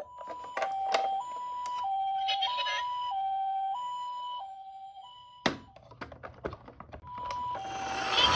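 Toy ambulance's electronic two-tone hi-lo siren, the Japanese-style "pee-po" alternation between a higher and a lower tone about every 0.6 s. It cuts off with a sharp click about five seconds in, followed by a few small clicks and a short restart of the siren. Near the end a rising rushing noise comes in.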